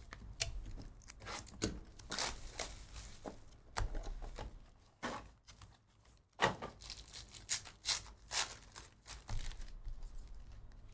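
Packs of 2023-24 Panini Court Kings basketball cards being torn open and their wrappers crinkled while the cards are handled: an irregular run of rustling and short tearing sounds.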